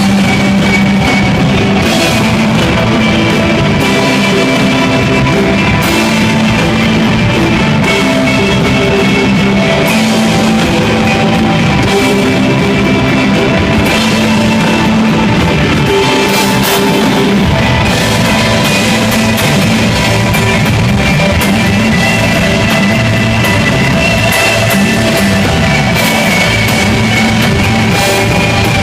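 Live instrumental desert rock from a guitar, bass and drums trio: sustained guitar lines over a steady drum beat with cymbals. The bass comes in heavier a little past the middle.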